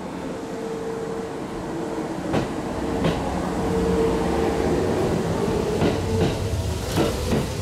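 Kintetsu 9000 series two-car electric train pulling away from a station platform and picking up speed, with a steady hum over its rumble. Its wheels clack over rail joints, mostly in pairs, from about two seconds in.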